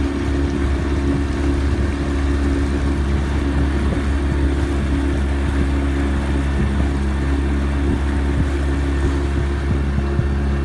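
Boat engine running at a steady speed while underway, a steady low drone, with water rushing and splashing along the hull.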